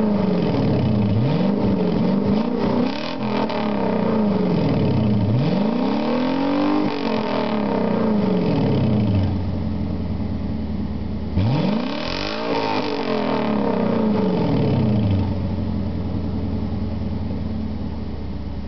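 1990 Infiniti Q45's 4.5-litre V8 revved through a pair of 2-inch straight pipes with the rear muffler removed, giving a raspy exhaust note. A few quick revs come first, then a longer rev about six seconds in, a steady idle, and another long rev about twelve seconds in that falls back to idle.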